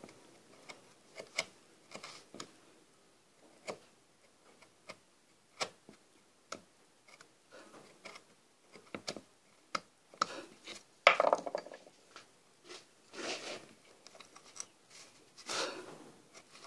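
Small wood-carving chisel worked by hand into wood, paring and scraping: an irregular string of short cuts and clicks, with a few longer scraping cuts in the second half.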